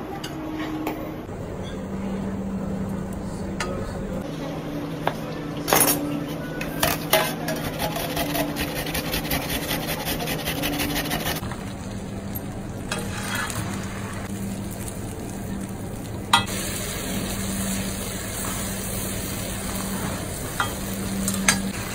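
Kitchen prep sounds in quick succession: a tomato scraped against a stainless steel box grater in fast, even strokes around the middle, then tomato sauce sizzling in a frying pan as a silicone spatula stirs it, in the last few seconds. A steady low hum runs underneath.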